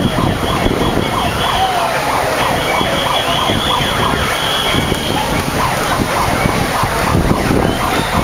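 Crowd of marchers walking and chattering in the street. A thin, high, steady tone sounds over them twice, for the first couple of seconds and again for a few seconds shortly after, then stops.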